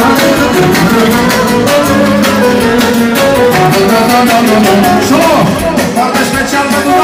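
Live manele music from a Korg Kronos electronic keyboard, a quick ornamented melody over a steady programmed beat, played loud through the room's speakers.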